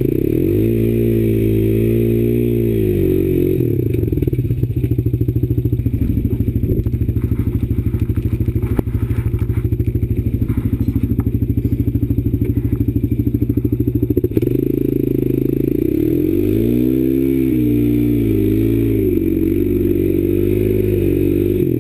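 Quad bike (ATV) engine running under load as it is ridden, its revs rising and falling about a second in and again near the end, steady in between, with a few clattering knocks.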